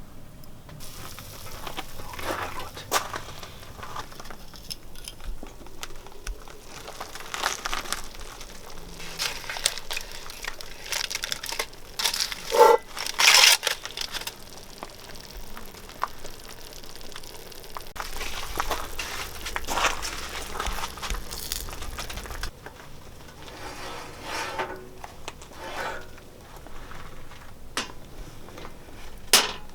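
Crinkling and rustling handling noises with scattered clicks and knocks; one louder clink with a brief ring about 13 seconds in.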